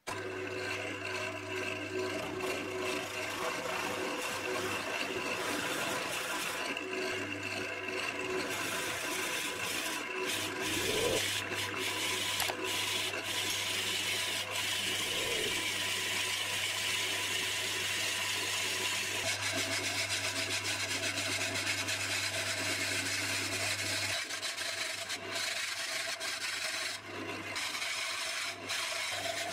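Wood lathe running with a steady hum while a drill bit in the tailstock chuck bores into the end grain of a spinning green elm blank, making a continuous rubbing, scraping cut. In the last few seconds the sound turns more uneven, with scattered clicks, as a long twisted bit carries on the hole.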